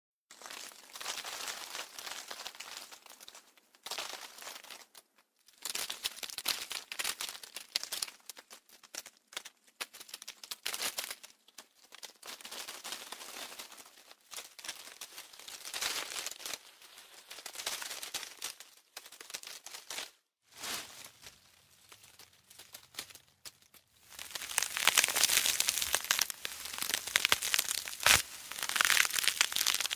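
Leaves and foliage rustling in irregular bursts of a second or two with short pauses between, louder and denser for the last six seconds.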